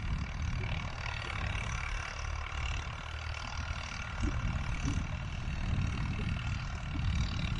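Wind buffeting the microphone: an uneven low rumble that swells and dips, with a fainter steady hiss above it.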